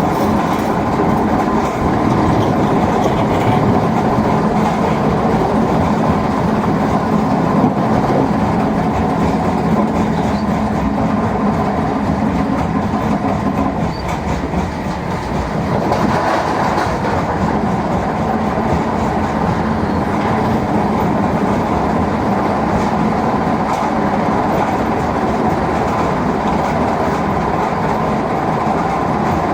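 Heavy machinery running steadily: a Volvo excavator's diesel engine and a mobile stone crusher at work on large stones. There is a brief dip in level about halfway through.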